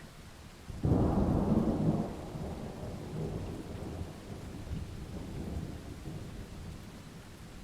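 A thunderclap in a rainstorm: a sudden loud crack about a second in, followed by a long rolling rumble that slowly dies away, over steady rain.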